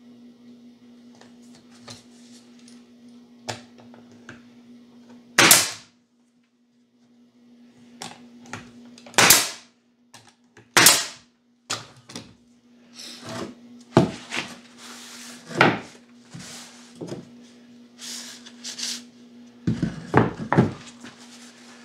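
Pneumatic nailer firing three sharp shots into the wooden jig pieces, a few seconds apart, with a steady low hum behind. After that, wooden pieces knock and clatter as they are handled and set down on the bench.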